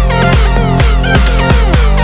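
Background electronic dance music with a steady, fast four-on-the-floor kick beat and bright synth chords.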